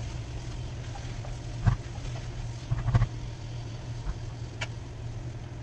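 Steady low hum of an induction cooktop, with a few scattered clinks and knocks of utensils against the pot as rice and dal are added to the cooking masala.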